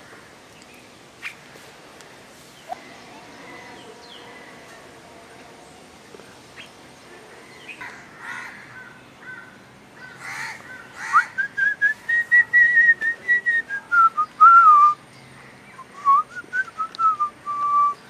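A run of quick, loud whistled notes starting about halfway through: a phrase that arches down in pitch, then a shorter one that rises and falls. Before it there is only quiet background with a few faint clicks.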